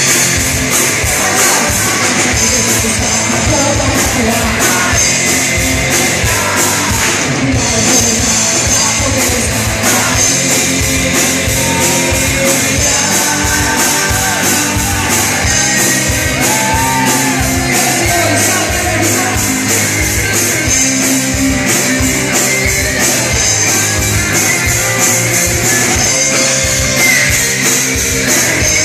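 A hard-rock band playing live at full volume, with a steady drum beat and a singer's voice over the band.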